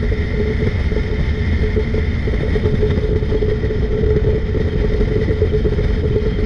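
Boat's outboard motor running steadily at cruising speed, mixed with heavy wind buffeting on the microphone.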